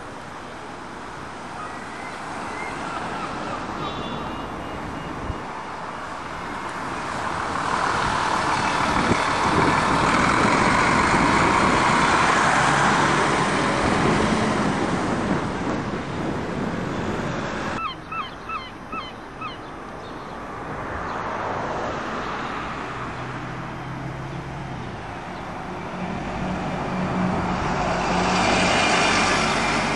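Road traffic passing: one vehicle swells past about ten to fifteen seconds in, and another near the end. After a sudden cut a little past halfway there is a quick run of about five short chirps.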